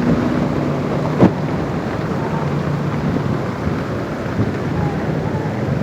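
Floodwater torrent rushing through a flood channel, a steady heavy rushing rumble, with a single sharp knock about a second in.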